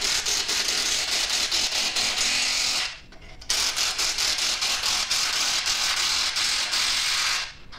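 A power tool running with a fast, rattling buzz in stretches of a few seconds: it stops briefly about three seconds in, starts again, and cuts off near the end.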